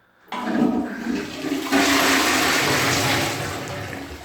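A Balterley Ambience close-coupled toilet flushing, the water rushing in suddenly, loudest in the middle and easing off near the end, as it carries away 20 squares of toilet paper. This is its powerful but short flush.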